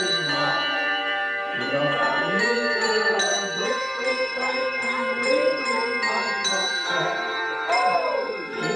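Tuned bells struck one after another in a tune, each note ringing on over the next, with voices faintly underneath.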